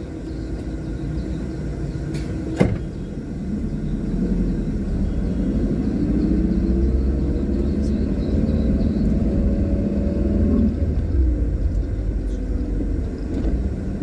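Car engine and road rumble heard from inside the cabin as the car pulls away from a stop. The engine note climbs for several seconds, then drops away. There is one sharp click a little over two seconds in.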